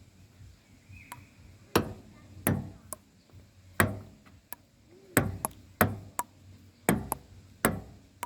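Table tennis rally: a ping-pong ball clicking off the paddles and the table, about a dozen sharp knocks at uneven spacing, some in quick pairs, starting a little under two seconds in.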